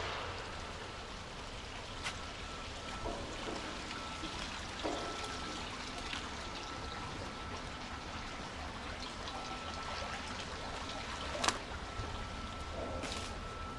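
Shallow river water trickling along a concrete drainage canal, a steady wash, with a few light knocks and one sharper click near the end.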